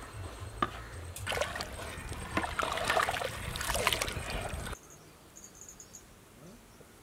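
Water sloshing and splashing as rice is stirred with a long stick in a large aluminium pot of water, over a low rumble, with a knock about half a second in. The sound cuts off abruptly about five seconds in, leaving quiet outdoor background with a few faint high chirps.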